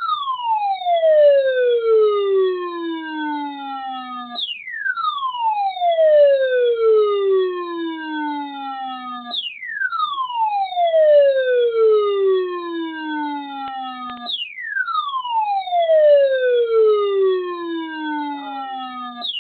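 Midland ER310 weather radio sounding its alert alarm, heard through a security camera's microphone. It is an electronic siren tone that falls from high to low over about five seconds, snaps back up and falls again, repeating about every five seconds. The alarm signals a NOAA Weather Radio warning alert, here a Special Marine Warning.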